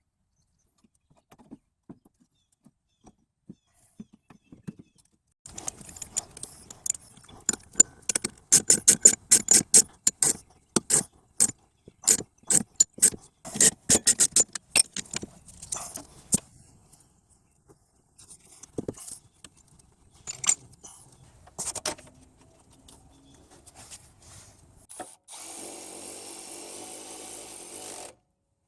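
Tool work on a car's rear brake assembly: a long run of sharp metallic clicks and knocks, densest in the middle, then a steady power-tool whir for about three seconds near the end.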